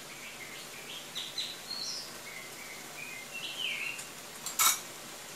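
Small birds chirping again and again over a faint steady hiss, with one short, sharp clatter near the end.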